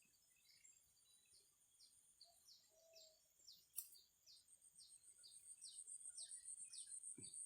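Faint outdoor ambience: a bird repeating short, high, falling chirps about two or three times a second over a steady high insect whine, with a pulsing high trill growing louder through the second half. A single sharp click about four seconds in.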